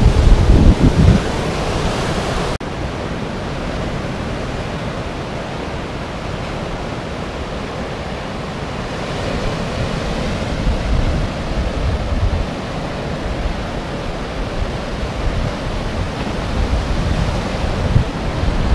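Baltic Sea surf washing up the beach in a steady rush, with heavy wind buffeting on the microphone at the start. About two and a half seconds in the sound drops suddenly to a steadier, softer wash of waves with lighter wind gusts.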